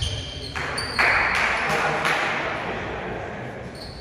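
Players' voices echoing in a gymnasium between volleyball rallies, with short high whistle tones, the referee's whistle near the end signalling the next serve.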